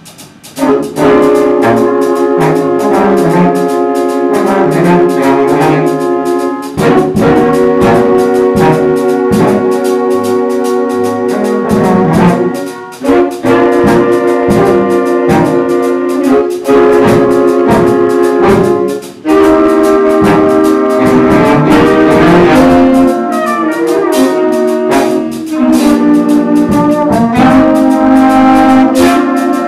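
Brass section playing slow, sustained harmonised chords in a jazz ballad arrangement, coming in about a second in, with long phrases broken by short pauses every six seconds or so.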